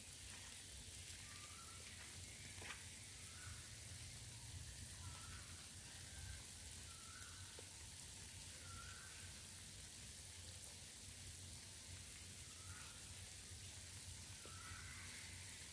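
Quiet outdoor ambience: a faint steady hiss with short faint chirps every second or so.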